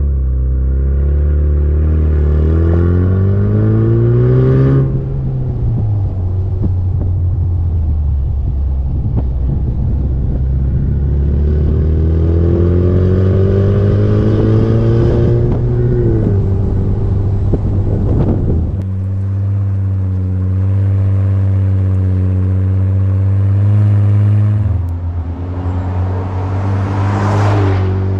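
Bowler Challenge Defender's P300 2-litre turbocharged four-cylinder petrol engine through a QuickSilver sport exhaust with quad carbon tips, accelerating on the road. The note rises in pitch as it pulls through two gears, dropping at each upshift, then settles to a steady note in the second half.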